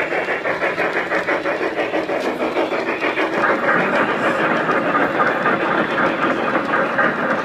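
Garden-scale model steam locomotive running along its track with a fast, even rhythmic beat, which grows louder a little over three seconds in.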